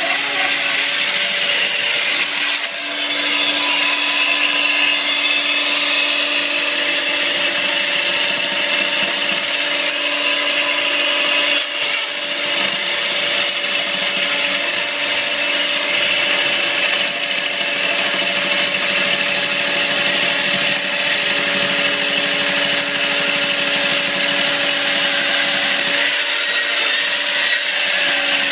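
Hydraulic chainsaw running steadily, its diamond chain grinding through concrete or stone with a constant whine over a harsh hiss, briefly easing twice.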